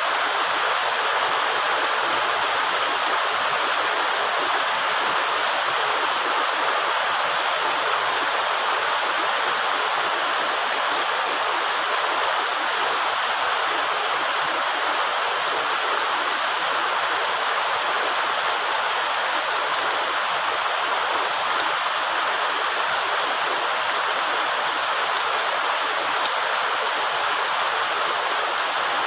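Steady rain falling, an even unbroken hiss with no thunderclaps.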